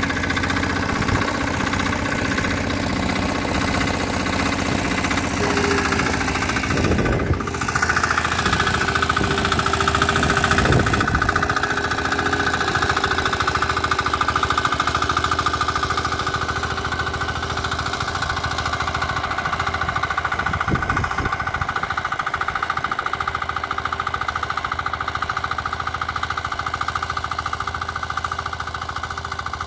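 Walk-behind tiller's engine running steadily under load as it pulls a ridging plough through the soil, growing gradually fainter as it moves away near the end.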